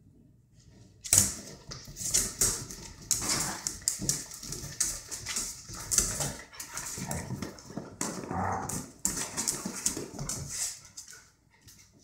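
Two dogs play-fighting: barks and yips mixed with scuffling and claws clicking on a tile floor, starting about a second in and going on in irregular bursts.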